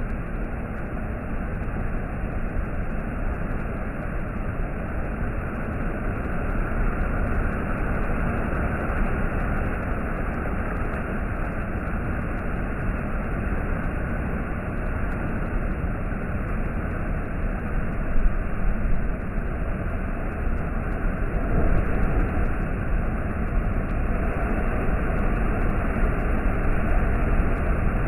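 Sea waves and surf on the East Sea coast, a continuous rush of churning water that swells a little now and then.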